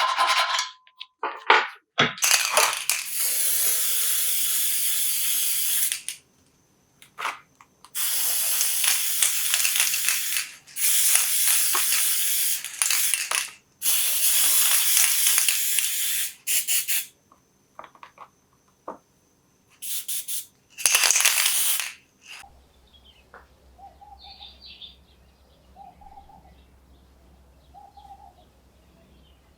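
Spray can hissing in a string of long sprays of two to four seconds each, with a few short puffs between, stopping about three-quarters of the way through. Faint chirping bird calls follow.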